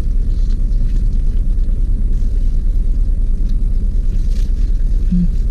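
Steady low rumble of a car engine idling, heard inside the cabin, with faint chewing of fried chicken on top. There is a short closed-mouth hum near the end.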